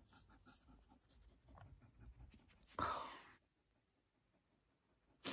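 A crying woman's breathing: faint breaths and small sounds, then one loud breath about three seconds in.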